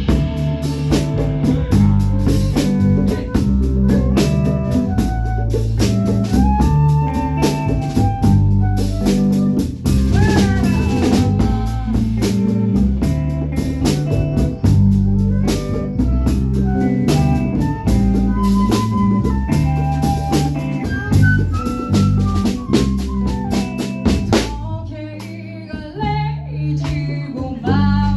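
Band playing an instrumental passage: drum kit with snare and rimshot hits over a bass line, with a melodic lead line on top. A few seconds before the end the drums drop back and the playing thins and softens, then picks up again.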